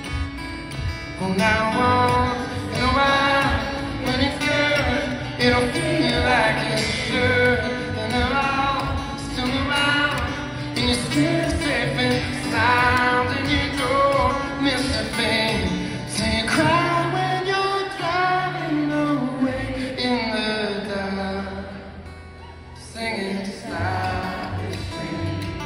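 A man singing live with his own steel-string acoustic guitar accompaniment, heard amplified through a venue's sound system. The music drops softer for a moment near the end, then picks up again.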